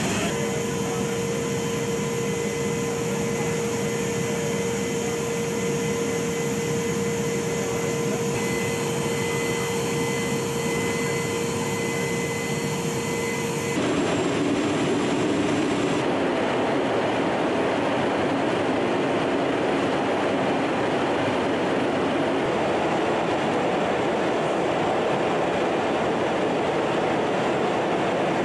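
Steady drone of a military transport aircraft in flight, heard from inside, with a steady whine over the engine and airflow noise. About halfway through it changes abruptly to a broader, even rushing hiss without the whine.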